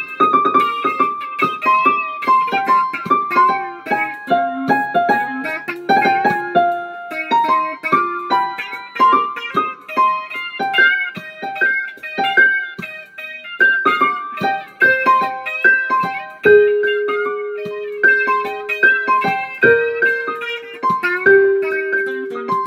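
Electric guitar played as a melodic line of picked single notes, with a few notes held long in the second half.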